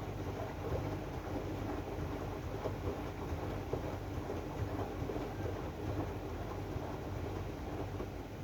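AEG DualSense washing machine running its Drum Clean cycle: a steady low hum with light, irregular ticks.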